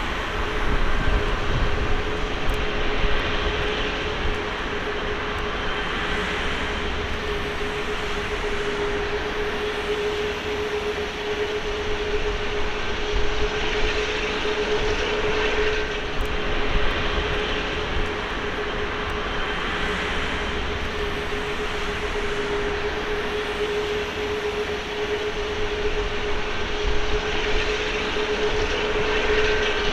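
Airbus A380's four Rolls-Royce Trent 900 turbofans running at high power: a broad, steady jet roar with rumble underneath and a single whine held at one pitch.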